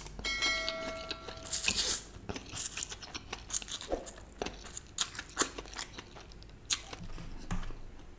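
A man slurping and chewing a forkful of Schezwan chicken noodles close to the microphone, with irregular wet mouth clicks and smacks throughout. A short ringing tone sounds about half a second in.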